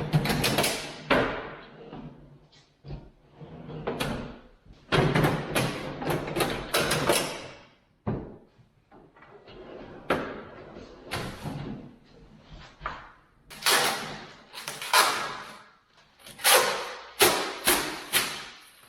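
Irregular knocks, thuds and clatter of wooden cabinet parts being handled and fitted, in clusters with short pauses between.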